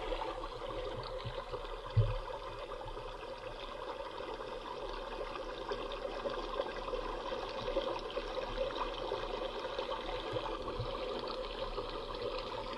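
Steady trickle of water from a small motorised rain device, its little motor running underneath. A single dull knock about two seconds in.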